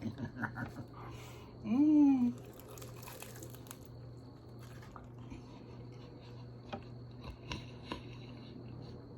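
Chewing a fried egg roll, with a loud "mmm" hum of enjoyment about two seconds in, then soft mouth clicks and crunches while chewing.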